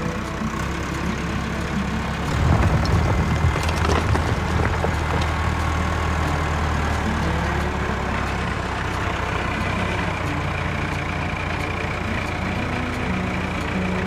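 Tractor engine sound effect running steadily, a low rumble that grows louder about two and a half seconds in as the vehicle passes.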